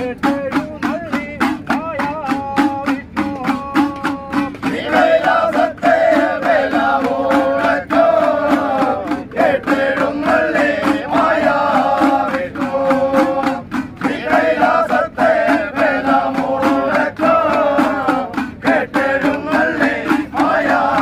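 A group of men singing an Ayyappa devotional bhajan, kept in time by a steady clicking beat of hand-held percussion. The singing grows fuller and louder about four and a half seconds in.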